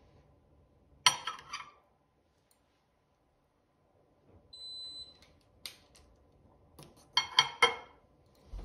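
Metal kitchen tongs clinking against a plate as potatoes are set down: a few sharp, ringing clinks about a second in and another quick cluster near the end. Midway there is one short, high electronic beep.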